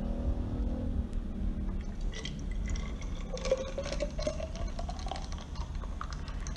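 Thums Up cola being poured into a bottle over ice cubes, with a crackling fizz; the pitch of the filling bottle rises steadily for about two seconds midway through.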